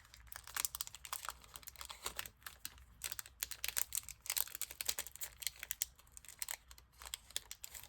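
Crinkling and tearing of a foil baseball card pack wrapper as it is opened by hand: a dense run of irregular sharp crackles.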